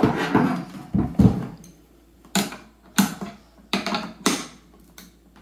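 A hand wrench and metal gun parts clicking and knocking as frame nuts are tightened. A scuff and two low knocks come about a second in, then about six sharp metallic clicks, irregularly spaced.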